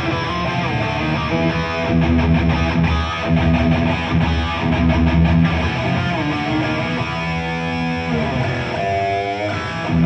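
Amplified electric guitar playing heavy metal, with bass underneath, and lead notes wavering in pitch near the end.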